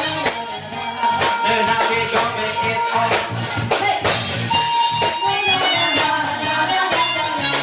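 A live band playing upbeat dance music with a steady beat, a keyboard among the instruments.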